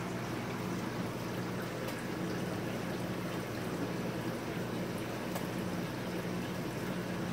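Saltwater reef aquarium's circulating water: a steady trickling, bubbling wash of running water over a low pump hum.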